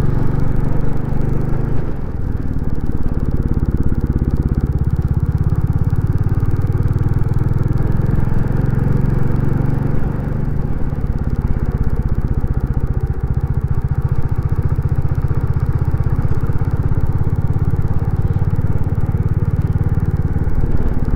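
Royal Enfield Classic 350's single-cylinder engine running steadily as the motorcycle cruises along, heard from the rider's helmet; the level dips briefly about two seconds in.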